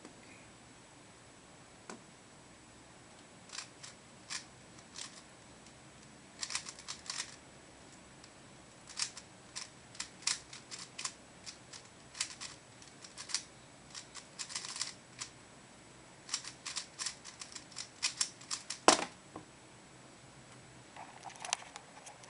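Standard 3x3 Rubik's Cube being speed-solved: quick flurries of sharp plastic clicks as the layers are turned, starting a few seconds in and lasting about fifteen seconds, ending with one louder knock.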